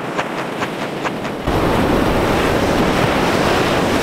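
Ocean surf washing up a sandy beach, with wind buffeting the microphone. For the first second and a half the sound is quieter and has a quick run of faint high ticks, then the surf and wind noise jumps louder.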